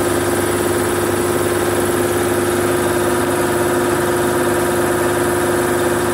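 Steady electric-motor hum from tyre-changing equipment, running evenly with one strong low tone.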